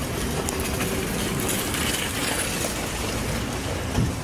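Steady rumble of road traffic and vehicle noise outdoors, with a brief low thump near the end.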